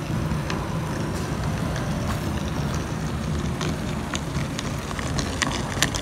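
Water pumped from a shallow well pouring into a 10,000-litre black plastic water tank: a steady rushing rumble as the tank fills, with scattered short clicks in the second half.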